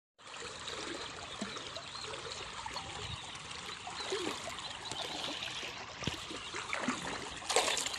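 River water running and trickling steadily, with a brief louder rush near the end.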